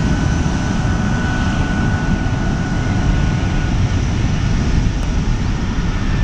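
Airbus A319-131's twin IAE V2500 turbofan engines at takeoff thrust on the takeoff roll: a steady heavy rumble with a thin high whine that fades a little past halfway.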